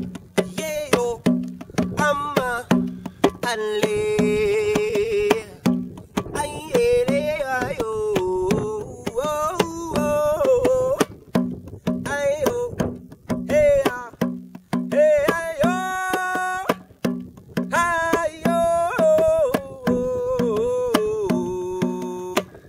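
Carved wooden hand drum beaten in a steady rhythm, each stroke with a low pitched boom, while a man sings wordless vocal lines over it, some notes sliding and some held long.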